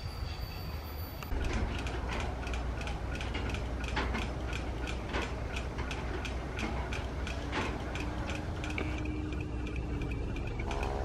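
Freight-train wheels squeal briefly, then give way to the low, steady rumble of GE AC44i diesel-electric locomotives running light and approaching slowly. A sharp, regular clicking, about four clicks a second, runs over the rumble. Near the end, a rising engine drone comes in as the locomotives draw closer.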